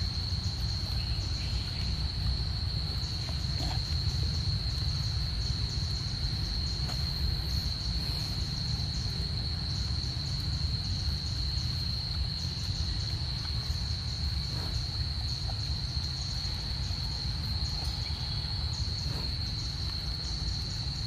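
Insect chorus: one steady high-pitched whine throughout, with a second, higher layer of chirping that pulses on and off in runs, over a constant low rumble.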